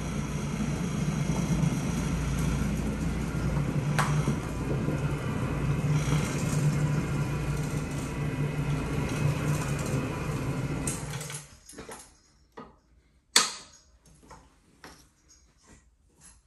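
Electric rotary floor machine running on carpet with a steady low motor hum, which shuts off about eleven seconds in. A few light knocks follow, and then one sharp knock.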